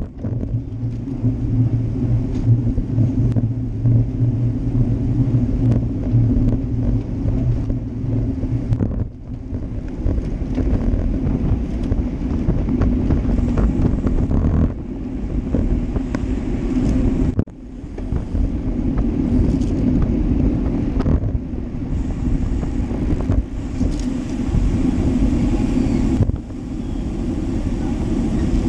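Wind rushing over a bike-mounted action camera's microphone, mixed with road and tyre rumble, while riding in a group of road cyclists. A steady low hum runs through about the first third, and the noise briefly drops twice.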